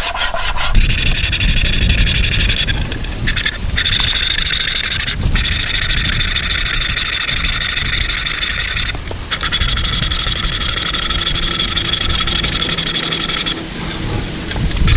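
Pocket saw strung as a bow saw on a forked stick, cutting through a log in rapid back-and-forth strokes: a steady rasping that runs smoothly without getting hung up, with a couple of short pauses.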